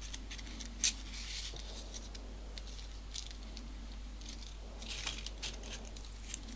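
Folded paper origami pieces rustling and scraping softly as a triangular paper unit is slotted into the modular model, with a few brief crinkles about a second in and again around five seconds.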